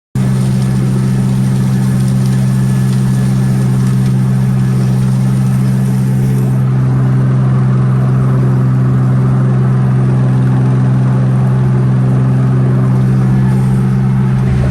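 John Deere 95 combine running at a steady engine speed: a loud, even, unchanging drone.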